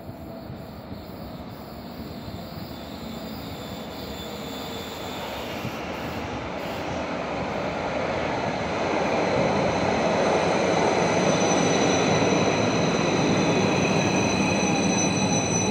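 A Stadtbahnwagen B (B80D) light-rail train arrives through the tunnel into an underground station. Its running noise grows steadily louder over the first half as it approaches and is loudest as it runs in alongside the platform. From about a third of the way in, thin, steady, high squealing tones ride on top.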